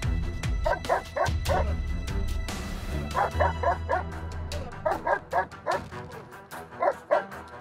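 Giant Schnauzer barking in rapid volleys of four or five barks at a time, the hold-and-bark stage of protection work in which the dog barks at the decoy before biting the sleeve.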